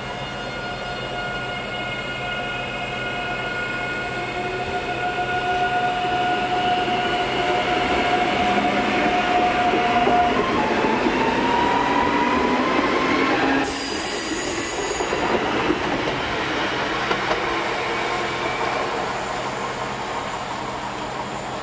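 Pesa Elf (EN76) electric multiple unit pulling away and accelerating past: a whine of several steady tones from its traction drive, one climbing in pitch as it gathers speed, over the rumble of wheels on rail. It grows loudest as the train passes, then fades as it draws away, with a short hiss about two-thirds of the way through.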